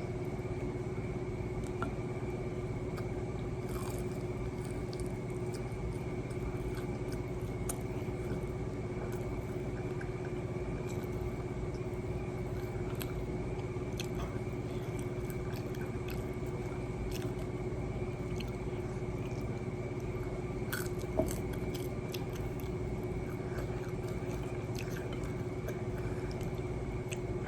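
Close-up biting and chewing of fried chicken tenders and fries, with scattered small crunches and one louder crunch about three quarters of the way through, over a steady background hum.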